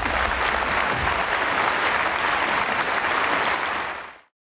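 Large audience applauding with steady clapping, fading out about four seconds in.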